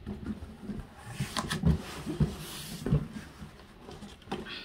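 Packing paper rustling as it is stuffed into a cardboard box, with irregular dull knocks of handling.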